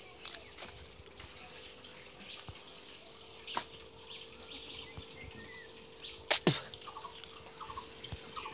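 Water dripping and splashing in an aerated outdoor fish tank, over a steady hum. Two sharp clicks about six and a half seconds in are the loudest sounds.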